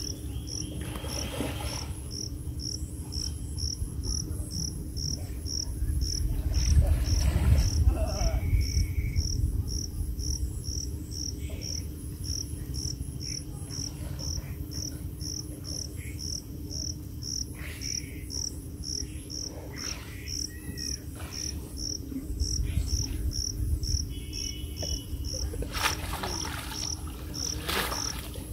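An insect chirping in a steady, even rhythm of about two high chirps a second, over a low rumble that swells about a quarter of the way in. Near the end comes water splashing as a wet fishing net is pulled up out of the pond.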